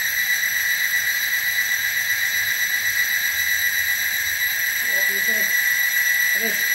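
Timken-type lubricant load tester running under load: the steel test pin pressed against the spinning rotor gives a steady high-pitched squeal, metal rubbing on metal through a film of engine oil, the rubbing that leaves a big scratch on the pin.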